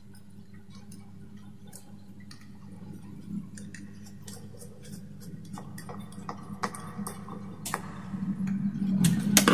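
Small plastic clicks and wire rattles as a wall switch or socket mechanism is handled and its wires fitted, the clicks coming more often and louder near the end, over a faint steady low hum.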